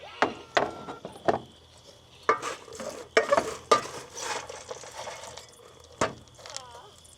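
Dishes and utensils being handled: a series of sharp clinks and knocks, with a denser spell of rattling and scraping in the middle.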